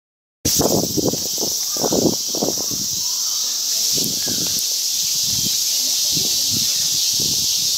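Steady, shrill, high hiss of a summer cicada chorus, starting after a brief silence, with distant voices murmuring underneath.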